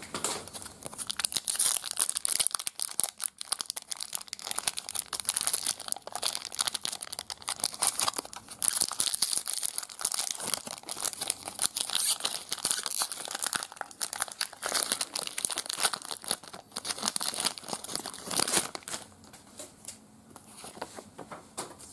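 Metallic foil wrapper of a 1996 Fleer Ultra X-Men Wolverine trading card pack being torn open and crinkled by hand: a dense, continuous crackling and tearing that dies down about three seconds before the end.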